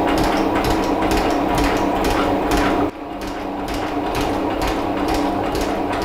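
A metal shaper cutting a steel bar in a vise. Its motor hums steadily under a repeated clatter from the ram's strokes and the tool working through the metal. The level drops a little before halfway through.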